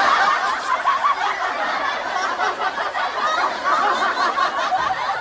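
A group of people laughing, many voices overlapping without a break.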